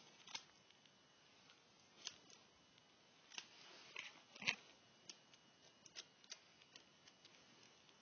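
Small scissors snipping through doll wig hair: a quiet run of about a dozen sharp snips at irregular spacing, the loudest about four and a half seconds in.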